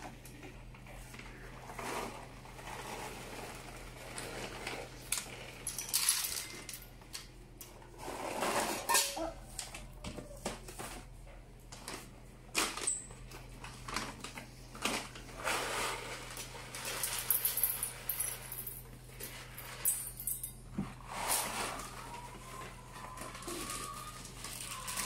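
Dry cat kibble rattling into a stainless steel bowl, with plastic pet-food bags crinkling and rustling as they are opened and handled.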